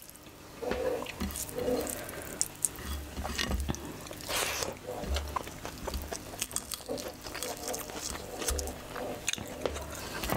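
A person chewing while mixing rice with mutton curry and chickpea curry by hand, close to the microphone, with many small wet clicks and smacks and soft low thumps.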